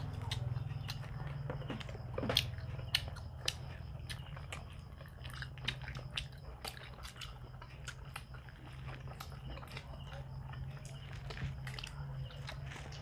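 People chewing and biting into pizza, with a scatter of short mouth smacks and clicks over a steady low hum.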